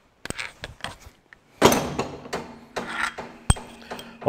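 Workshop handling noises: a scattered run of knocks, clicks and scrapes from metal tools and parts being put down and picked up, with a louder knock about a second and a half in and a sharp click a couple of seconds later.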